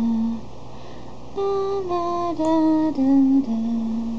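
A voice singing a slow tune in long held notes: one note at the start, then after a short lull a run of notes stepping down in pitch.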